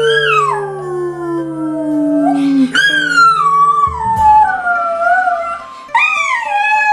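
Small terrier howling: three long howls that slide down in pitch, the third starting about six seconds in. A lonesome howl that the owner reads as the dog missing its absent mistress.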